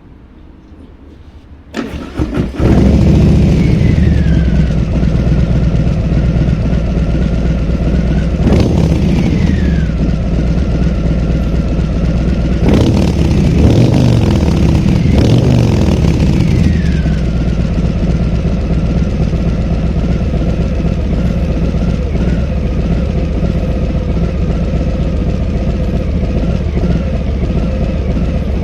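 Harley-Davidson Breakout's Milwaukee-Eight 114 V-twin starting about two seconds in and settling to idle, blipped three times on the throttle, with the revs falling back after each, then idling steadily.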